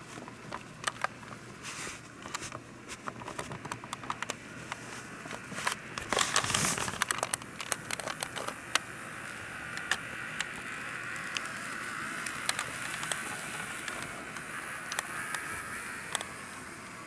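N gauge model train running on the layout's track: wheels clicking over rail joints, with a dense, loud clatter around six seconds in, then a steady rolling and motor hum that swells from about ten seconds and eases off near the end.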